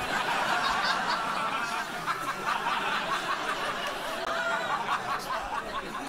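Comedy club audience laughing, many people at once, breaking out suddenly and slowly dying down over about six seconds.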